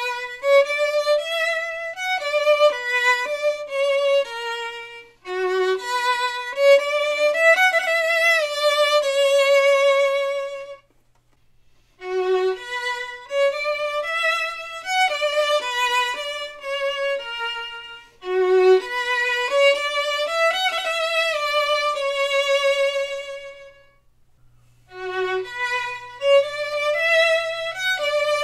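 Solo violin playing the same short, soft phrase five times over, each pass ending in a brief break before it starts again. The passes are recorded from progressively farther away, from about 3 feet out to 12 feet, so more of the room comes into the sound.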